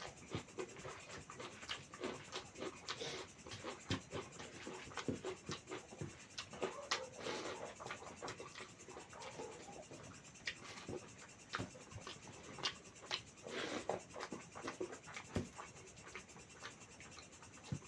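Close-up eating sounds: irregular wet clicks and smacks of chewing and mouthing a meal of mutton curry with rice.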